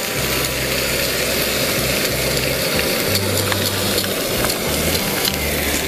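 Ham slices frying in a pan over a camp stove: a steady sizzling hiss with scattered small crackles.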